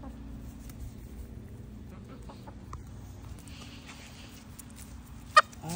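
Domestic hens clucking low and steadily while foraging, with one sharp, loud click near the end.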